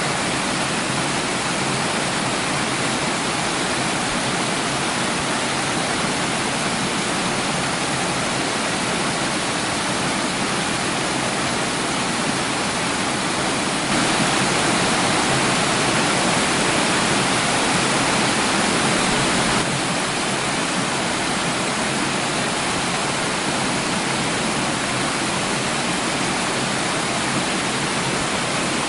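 Steady rushing of flowing water, an even hiss with no distinct splashes or drips. It grows slightly louder for about five seconds midway, stepping up and back down abruptly.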